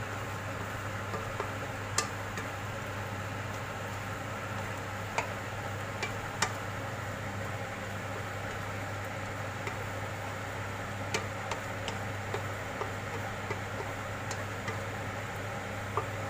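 Fried chicken pieces sizzling in a thick spicy sauce in a pan while a wooden spatula stirs and tosses them to coat, with about ten scattered sharp taps of the spatula against the pan. A steady low hum runs underneath.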